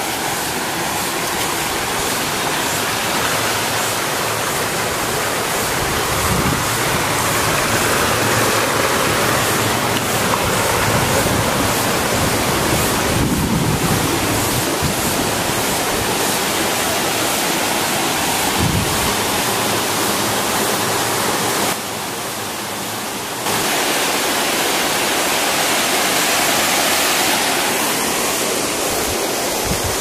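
Water rushing steadily down a small rocky cascade in a stream. A few low rumbles underneath, and the rush dips briefly about two-thirds of the way through.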